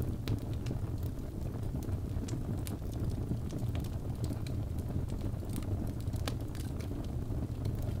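Log fire burning in a fireplace: a steady low rumble of flames with irregular sharp crackles from the burning wood.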